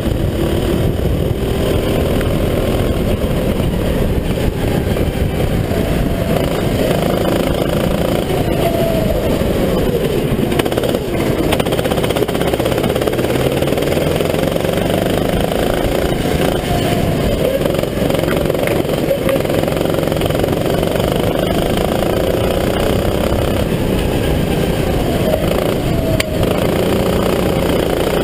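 Sodi RT8 go-kart engine, heard on board, with its revs repeatedly climbing and dropping as the kart accelerates and brakes through the corners.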